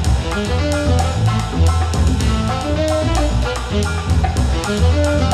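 Background music: an upbeat instrumental tune with a steady drum beat and a moving bass line.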